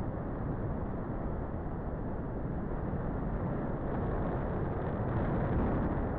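Wind rushing and buffeting over the microphone of a paraglider pilot's onboard camera in flight, a steady noise with nothing else standing out.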